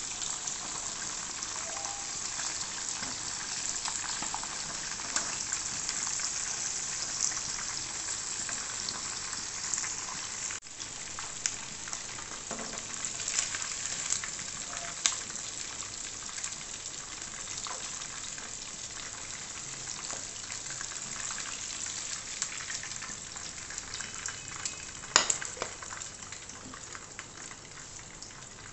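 Chicken drumsticks deep-frying in hot oil in a wok: a steady crackling sizzle, with occasional sharp clicks of a metal wire skimmer against the pan, the loudest about 25 seconds in. The sizzle gets quieter near the end as the pieces are lifted out.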